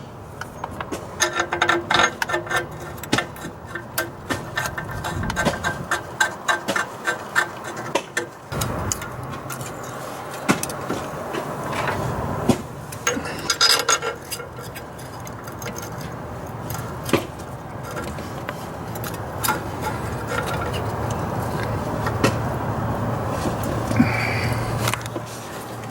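Metal hand tools and bolts clicking and clinking as exhaust manifold bolts are started into a Cummins diesel's cylinder head. The clicks come thick and fast for the first several seconds, then turn sparse.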